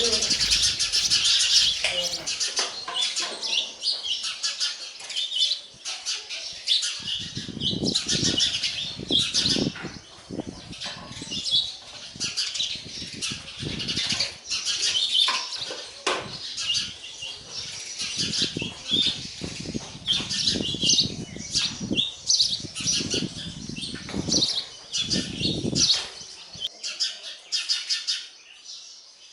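House sparrows chirping rapidly and without pause at the nest, chicks begging to be fed. From about seven seconds in until near the end, repeated low flutters of wings come and go among the chirps, which thin out in the last few seconds.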